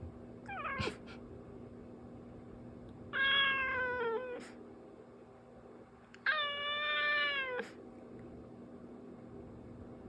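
A cat meowing three times: a short falling call, then two longer, drawn-out meows a few seconds apart.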